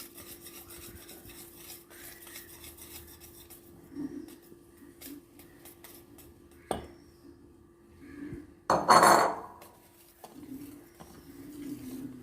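Spoon mixing semolina into cake batter in a bowl, with light clinks and scrapes against the bowl. There is a sharp knock just before seven seconds and a louder clatter of utensil on bowl about nine seconds in, over a faint steady hum.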